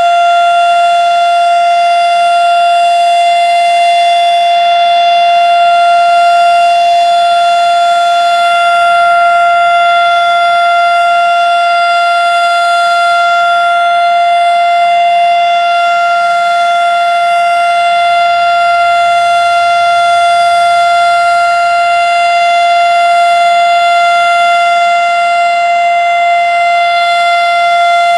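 Erick 2 hp fire siren sounding a full alert, held at full speed on one steady, unwavering tone.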